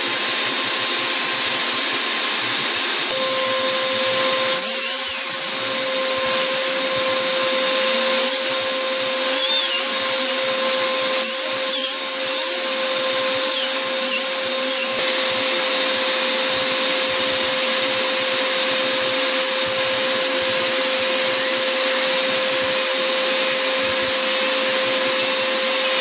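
Vacuum cleaner running steadily with a constant whine, its suction drawing air through a 3D-printed air turbine on the hose end; the whine gets stronger about three seconds in.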